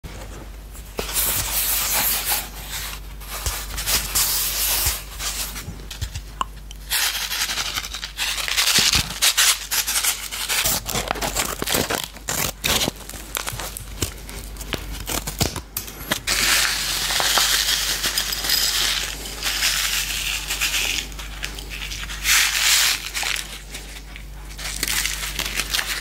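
Popping-candy packet crinkled, rubbed and torn open close to the microphone, in repeated bursts of loud rustling over a steady low hum.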